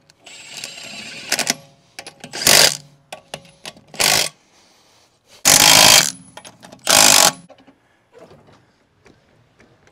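Impact wrench run in four short bursts, tightening lug nuts on a car's front wheel, after a rougher stretch of spinning a nut on.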